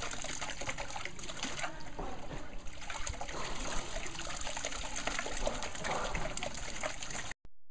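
Dye liquid splashing and trickling as silk is worked by hand in a natural-dye bath, a steady run of small splashes and drips that cuts off abruptly near the end.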